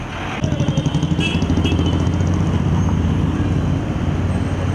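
Motor vehicle engine running close by: a loud, steady low hum that pulses slightly, starting abruptly about half a second in after general road-traffic noise.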